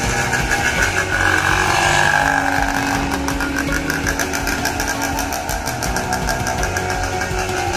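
1977 Suzuki TS100's two-stroke single-cylinder engine running as the trail bike pulls away. It revs up in the first couple of seconds, then runs on steadily. The engine is freshly rebuilt and, by the owner's account, still needs some tuning.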